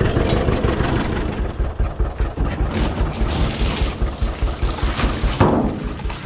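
A tractor engine idling with an even low throb, about three pulses a second. A short burst of hiss comes about three seconds in.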